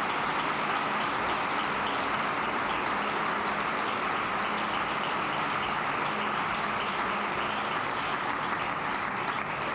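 A large audience applauding steadily, easing off a little near the end.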